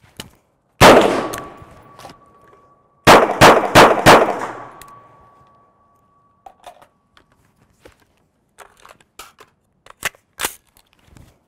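A single rifle shot about a second in, the rifle's last chambered round before it runs dry. Four quick pistol shots follow about three to four seconds in, each with a long fading echo and a thin high ring lingering after them. Then come quiet clicks and rattles of holstering and handling the AR-style rifle, with two sharp metallic clacks near the end as the rifle is loaded again.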